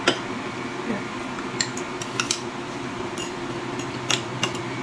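Metal spoons and forks clinking and scraping against ceramic bowls as two people eat: about eight separate, irregular clinks over a steady low hum.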